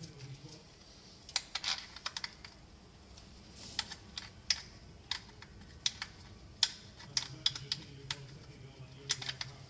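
Irregular sharp metallic clicks and taps of hand tools and small engine hardware being handled at the front of the engine. They come in quick clusters separated by short pauses.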